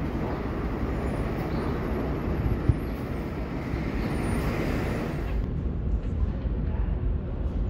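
Approaching R211 subway train, a steady rumble of wheels on rail with a few sharp knocks. About five and a half seconds in the sound turns duller as the rumble of another train coming into an underground station takes over.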